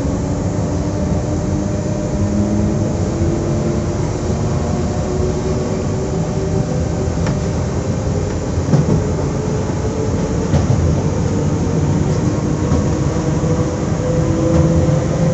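SNCF Z 20827, a Z2N double-deck electric multiple unit, standing at the platform with its on-board equipment running: a steady hum with several tones that drift slightly in pitch, and a few faint clicks.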